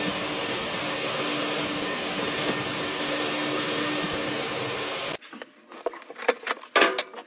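A vacuum runs steadily, then cuts off abruptly about five seconds in. A few sharp clicks and knocks follow.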